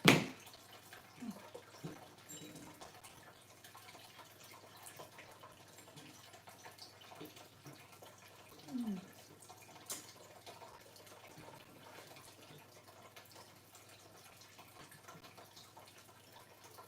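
A sharp knock, then faint scattered clicks and taps of parts being handled during the assembly of a rolling computer desk, with a short falling sound about nine seconds in.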